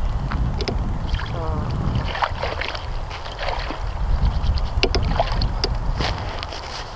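Wind buffeting the microphone in a heavy, uneven low rumble, with scattered short clicks and crunches from handling and kneeling on the snow.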